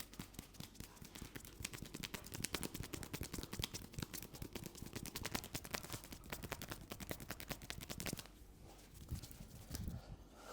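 A fast, dense run of sharp slaps and taps from hands working a head massage, many strokes a second. It stops about eight seconds in, and a few softer thuds follow.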